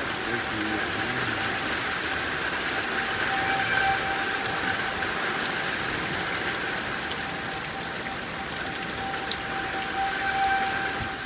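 Heavy rain falling steadily, with the single held note of an outdoor tornado warning siren over it, swelling a little louder twice.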